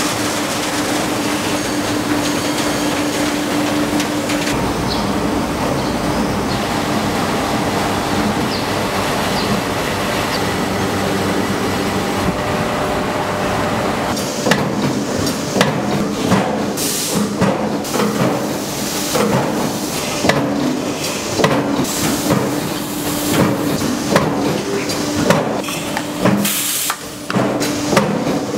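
Tennis ball production machinery running: a steady mechanical din with a low hum, which about halfway through turns into irregular clanks and knocks, several a second.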